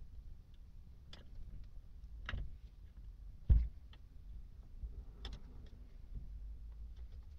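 Hands working on a small electric water pump's clamp bolt during reassembly: scattered light clicks and taps, with one louder thump about three and a half seconds in.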